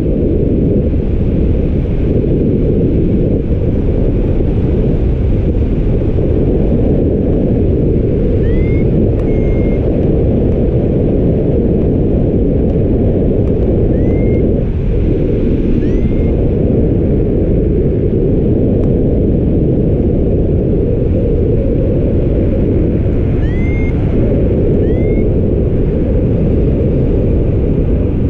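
Steady wind noise rushing over the microphone in flight, a loud low rumble. A few faint, short rising chirps come through now and then.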